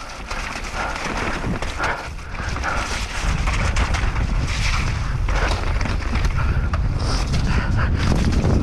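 Mountain bike descending a dirt trail at speed: wind buffeting the rider's camera microphone, with tyres on dirt and the knocks and rattles of the bike over rough ground. The wind rumble grows louder about three seconds in as the bike picks up speed.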